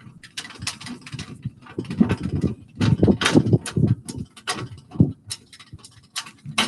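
Car jack being worked to lower the car onto its spare wheel: a run of irregular metallic clicks and knocks, heaviest about two to four seconds in.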